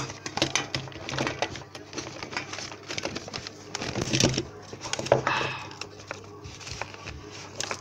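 Irregular clicks, taps and rustling close to the microphone, over a low steady hum: handling noise as the phone is moved against clothing.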